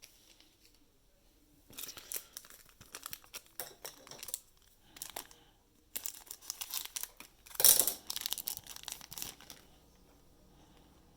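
Trading card pack wrappers being torn open and crinkled, in two spells of crackling, the loudest just before eight seconds in.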